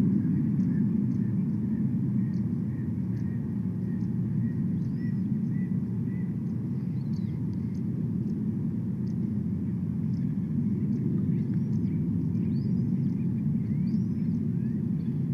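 Steady low outdoor rumble, with faint high chirps of small birds scattered throughout and a run of evenly spaced bird notes, about three a second, during the first six seconds.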